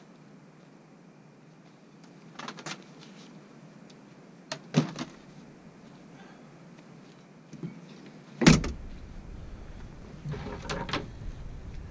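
A few scattered knocks and clunks of things being handled, the loudest about eight and a half seconds in, after which close rustling and a low rumble from something touching the truck tailgate near the microphone run on.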